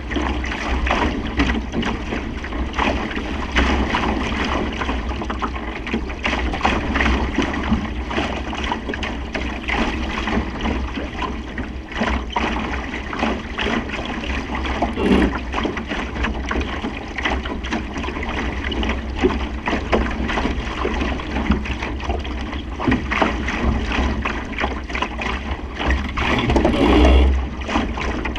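Wind buffeting the microphone over water rushing and slapping against the hull of a Supernova sailing dinghy under way, with a louder surge of spray and wind near the end.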